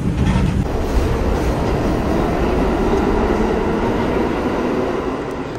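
New York City subway train running along the tracks: loud, steady rail noise.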